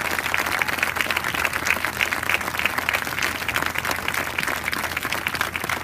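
Crowd applauding: many hands clapping at once, at an even level.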